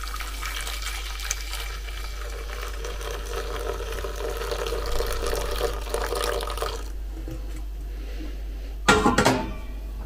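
Hot water poured from a kettle into an enamel pot holding bleach powder: a steady splashing pour that stops about seven seconds in. A brief clatter follows near the end.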